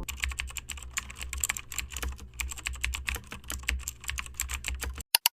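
Rapid, irregular clicking like typing on a computer keyboard, over a low steady hum. It cuts off abruptly near the end, followed by two last clicks.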